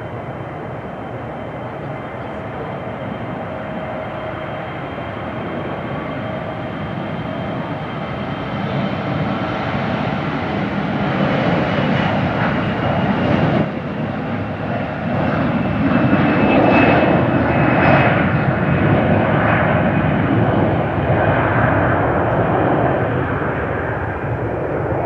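Twin turbofan engines (GE CF34) of an Embraer E-Jet regional jet at takeoff thrust on its takeoff roll, a jet rumble with a steady high whine that grows louder as the jet accelerates down the runway and lifts off.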